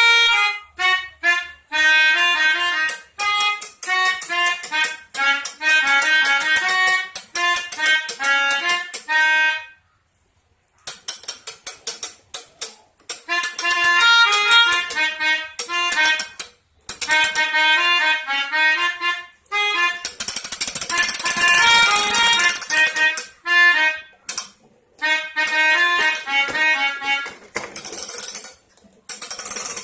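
Toy melodica (pianika) played in short bursts of reedy notes imitating the 'telolet' musical horn of Indonesian buses, with brief pauses between phrases. It stops for about a second around ten seconds in, and a harsher, noisier passage comes around twenty seconds in.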